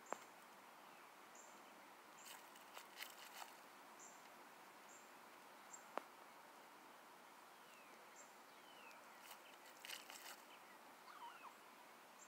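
Faint scratching and rustling of hens raking and pecking loose dirt, in two short spells of scratchy clicks, with a couple of sharp pecking clicks. Faint high chirps repeat in the background, with a few short falling whistles later on.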